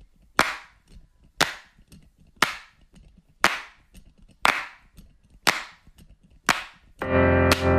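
Eight sharp snapping hits, one each second, each ringing off briefly. About seven seconds in, music with a guitar comes in.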